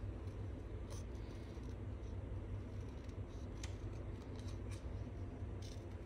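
Small paper snips cutting around an image in cardstock: a few faint, separate snips, over a steady low hum.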